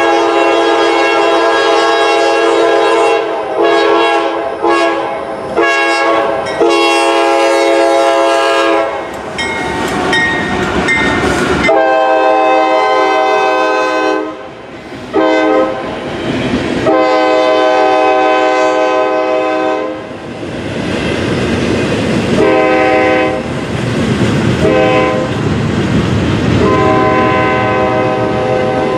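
Diesel freight locomotive's multi-tone air horn blowing a string of long and short blasts, with the running noise of a passing double-stack container train's wheels on the rails between blasts.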